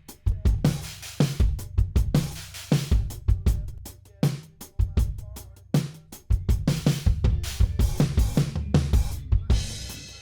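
Instrumental stretch of a mixed song: a drum kit playing a steady groove of kick, snare and hi-hat over a low bass, with a cymbal wash near the end.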